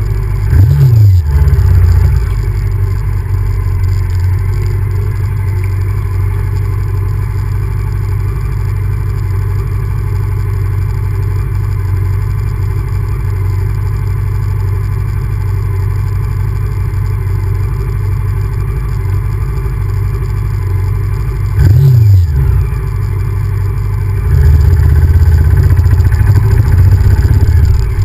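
Honda VTR1000F's 90-degree V-twin engine running under way at a steady cruise, with short revs that rise and fall about a second in and again about three-quarters through, then harder throttle over the last few seconds.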